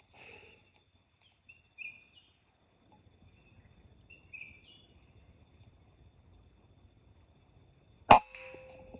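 A few short bird chirps, then about eight seconds in a single sharp air rifle shot, followed by a brief faint ring.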